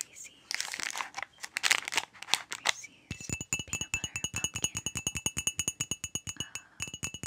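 Plastic candy wrappers on Halloween Reese's candy crinkling as they are handled. From about three seconds in, background music starts with a fast, even ticking beat and steady high tones.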